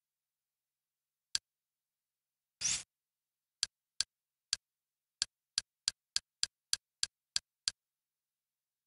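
Kodi media player's interface sounds: a single short click, then a longer swish as a dialog opens, then a quick run of about a dozen short navigation clicks as the menu highlight steps from item to item.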